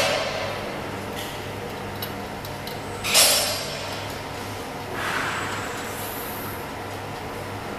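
Sheet-metal cover of a needle detector conveyor scraping against its frame as it is fitted, in a loud short scrape about three seconds in and a weaker one about five seconds in, over a steady low hum.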